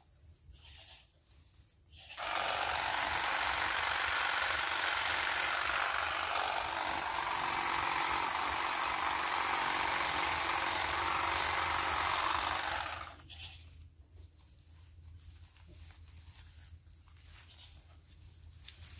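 Hand pruning nippers snipping and pulling dry brush and vines, with rustling and scattered clicks. About two seconds in, a loud steady rushing noise starts abruptly and covers everything, then stops suddenly about ten seconds later.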